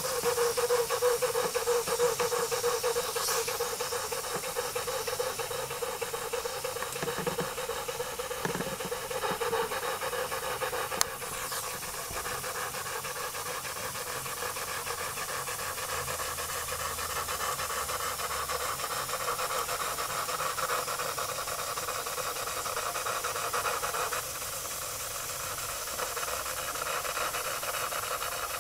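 Jensen live steam engine with a #20 cylinder, fed by a 3-inch electric boiler, running under steam with a steady hissing flutter from its exhaust. A steady tone fades away over the first several seconds, and there is a single sharp click about eleven seconds in.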